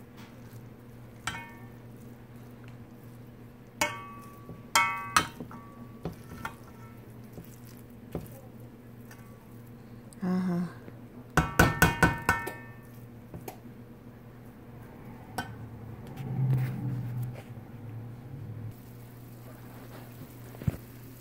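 Metal spoon stirring rice in a stainless steel pan, clinking and scraping against the pan with short metallic rings: once about a second in, several times around four to five seconds, and a quick run of clinks in the middle. A steady low hum runs underneath.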